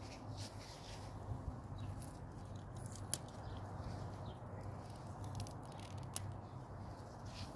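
Faint rustling and handling noise over a steady low hum, with two sharp clicks, one about three seconds in and one about six seconds in.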